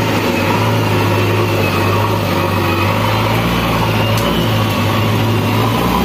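JCB backhoe loader's diesel engine running steadily, with a deeper low rumble coming in about halfway through.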